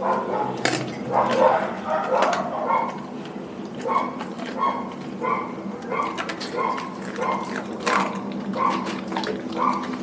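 A Doberman chewing and mouthing a whole raw chicken: wet chewing and smacking about three times a second, with a few sharp crunches.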